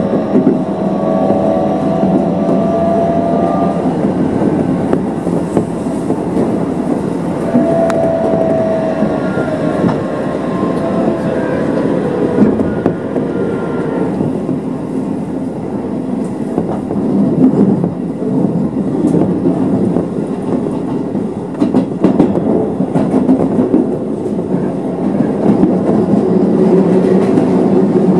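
Keisei Electric Railway train running along the line, heard from on board: a steady rumble of wheels on rail with clickety-clack over the rail joints. A faint whine comes and goes in the first several seconds.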